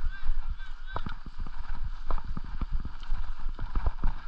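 Mountain bike rattling and knocking over bumpy grass, a quick irregular run of clunks from the frame and parts. In the first second, a few short rising-and-falling squeaks or chirps.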